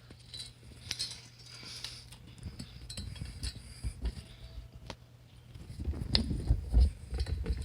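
Scattered small clicks and rustling handling noises as an LED light strip is worked onto a bicycle frame, with a few low thumps of hands on the phone near the end.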